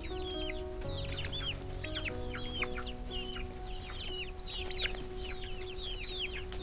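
A flock of young chickens peeping busily: many short, high calls that fall in pitch, several a second. Soft background music with slow held notes runs underneath.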